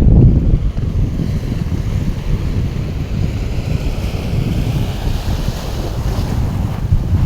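Wind buffeting the microphone in a heavy, fluttering low rumble, over the hiss of surf washing on a beach.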